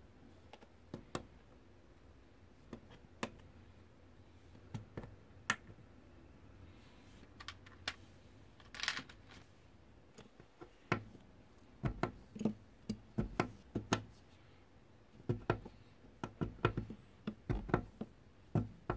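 Hard plastic LEGO Technic parts clicking and knocking as pins are pressed into beams and pieces are set down on a tabletop: scattered sharp clicks, coming thicker and faster in the second half, with a short rattle about nine seconds in.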